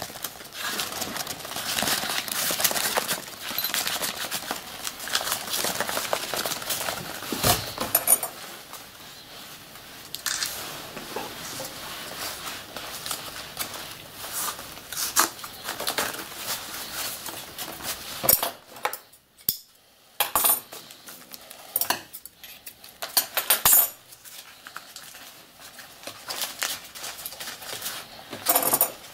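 Brown paper rustling and crinkling as it is gathered and twisted by hand around the fuse of a firework shell, with irregular sharp clicks and taps of handling on the workbench.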